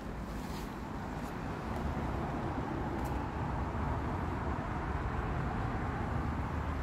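Steady low rumble and hiss inside an SUV's cabin, a little louder from about two seconds in, with a few faint clicks.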